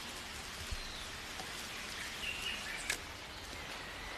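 Rainforest ambience: a steady hiss, like rain or a stream, with a few faint bird chirps and a single click a little before the end.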